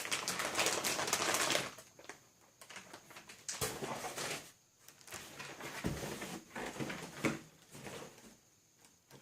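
Packaging being handled: a dense crackling rustle for about the first second and a half, then scattered light clicks and knocks as parts are moved about.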